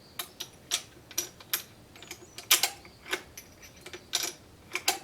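Sharp metallic clicks and clacks of a Dutch Beaumont bolt-action rifle's action being worked, bolt and magazine cutoff handled after loading; about a dozen separate clicks, the loudest about two and a half seconds in.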